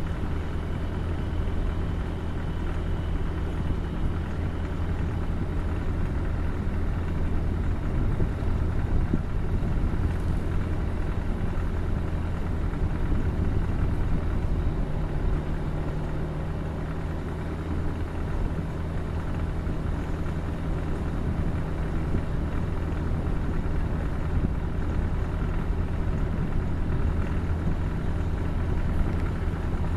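Car driving at a steady pace: a constant low engine hum with steady tyre and road noise.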